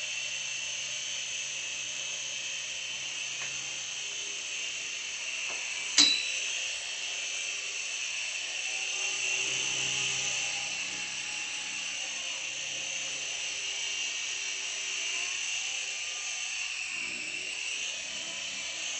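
Small toy RC helicopter's electric motor and rotor whining steadily in flight, with one sharp knock about six seconds in.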